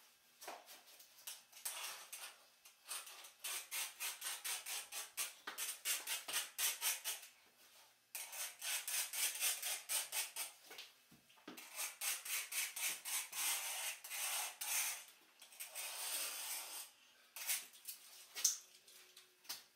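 Rapid back-and-forth scraping or rubbing, several strokes a second, in runs of a few seconds broken by short pauses.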